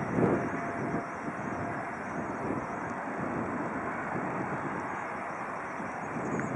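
Distant Learjet 60 business jet's twin turbofans making a steady rush as it rolls along the runway, with gusts of wind buffeting the microphone in the first half-second.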